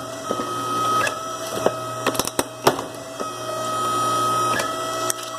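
A small power-tool motor whining steadily in two spells, with a few sharp metallic clicks and snaps in between.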